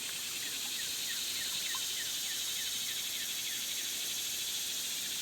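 Steady high-pitched drone of an insect chorus, with a bird giving short, quick falling chirps several times a second.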